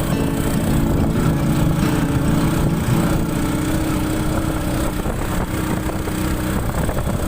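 A vehicle engine running steadily, with a constant rumble and hum.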